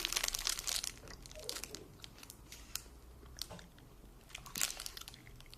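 A person chewing a chewy candy close to the microphone: wet, sticky mouth clicks and smacks at an irregular pace, busiest in the first second, then sparser, with a brief louder cluster a little past halfway.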